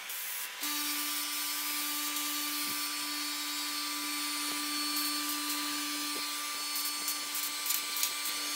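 Gravity-feed spray gun spraying polyester primer: a steady hiss of atomising air with a faint whistling tone in it, starting about half a second in and held without a break.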